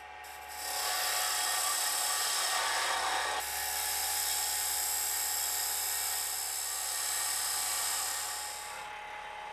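Woodturning box cutter shaving the end of a spinning wooden box lid on a lathe: a steady hissing cut that changes about three seconds in and stops near the end, over the lathe's steady motor whine.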